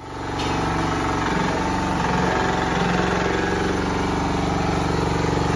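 Small engine of a walk-behind double-drum roller running steadily as the machine is driven along on its drums.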